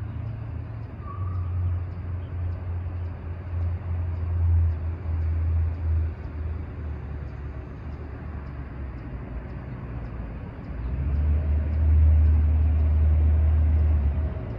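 Low rumble of distant vehicle engines that swells and fades twice: first from about a second in, then more strongly from about eleven seconds.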